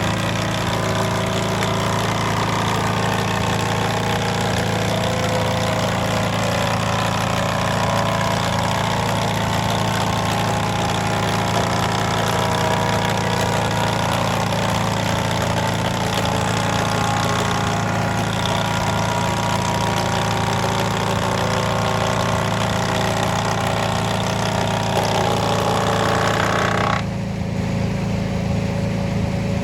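A 1948 Farmall H's four-cylinder engine runs steadily under belt load, driving an antique straight-knife wood planer at about 1900 RPM as it cuts through a hard maple panel. The dense cutting noise stops suddenly near the end, as the board clears the knives, and the tractor and planer keep running.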